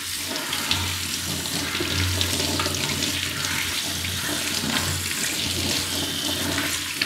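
Kitchen tap running in a steady stream onto a metal tea strainer and into a stainless steel sink as the strainer is rinsed clean.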